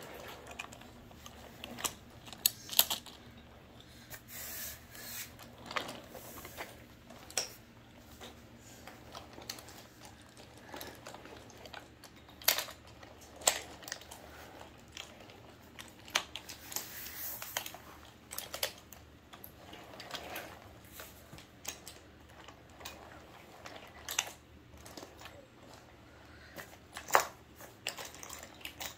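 Wooden toy trains being handled and pushed along wooden track: irregular small clicks and clacks of wooden cars knocking together and wheels rolling over the track, with a few sharper knocks.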